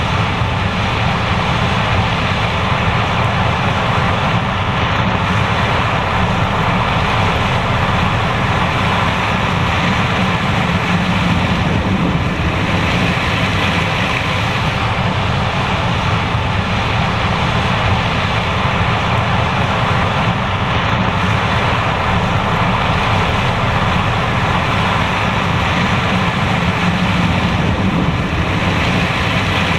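John Deere S780 combine running steadily while harvesting corn: one even, unbroken machine noise with no changes.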